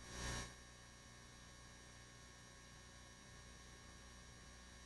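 Near silence: a faint steady electrical hum, with a short burst of hiss in the first half-second.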